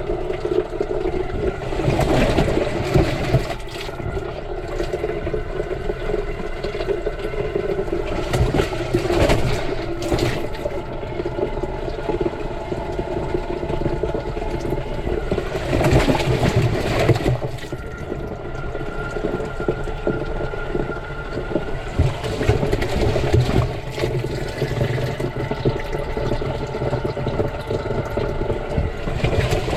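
Water sloshing and splashing inside a tumbling washing machine drum, heard from inside the drum, over a steady machine hum with a few held tones. Louder surges of sloshing come several times, roughly every seven seconds.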